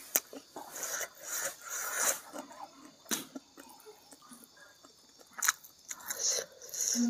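Eating sounds of a person eating by hand: chewing and wet mouth smacks, with a few sharp clicks, and fingers working through rice and side dishes on the plate.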